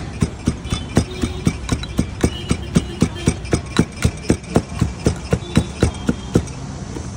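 Pestle muddling lime pieces and mint leaves in a small steel cup: quick, even knocks at about four a second, stopping near the end, over a steady low hum.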